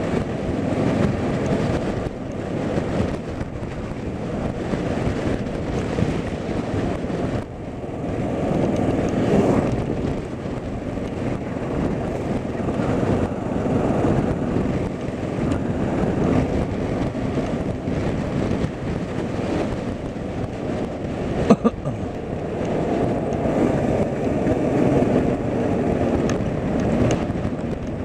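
Steady low rumble of a moving vehicle, with wind buffeting the microphone. A single sharp click comes about two-thirds of the way through.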